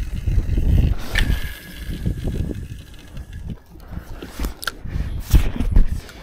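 A spinning rod and reel being worked by hand: reel turning and handling knocks, with a few sharp clicks. Underneath is an uneven low rumble of wind buffeting the microphone.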